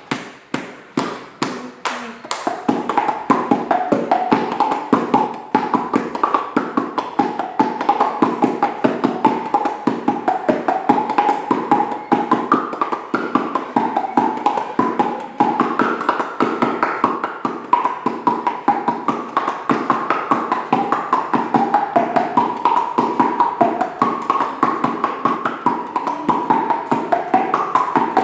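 A fast, steady tapping beat, about four taps a second, with a single high wavering tune carried over it, rising and falling like a melody.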